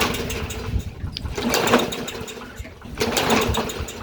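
Toro lawn mower's small engine being pull-started: three pulls of the recoil starter, each turning the engine over in a short rattling burst without it catching. The owner suspects fuel gelled in the carburetor.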